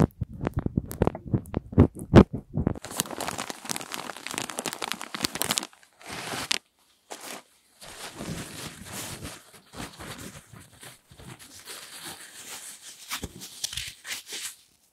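Fingers tapping and rubbing directly on a handheld recorder's microphone, giving sharp thumps for the first few seconds. Then a tissue is crumpled and rustled right at the microphone, a dense crinkling with short pauses, for the rest.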